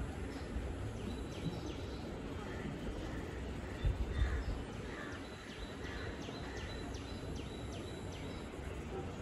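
Outdoor background noise with a bird repeating short, high, falling chirps, about three a second and more in the second half. There is a brief low thump about four seconds in.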